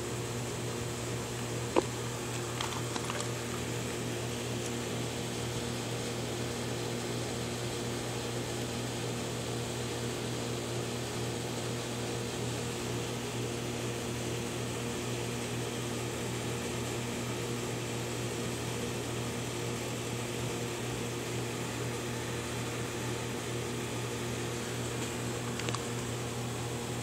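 Steady machine hum: a low drone with several fixed higher tones, unchanging throughout. A sharp click sounds about two seconds in, with a few fainter clicks soon after and one near the end.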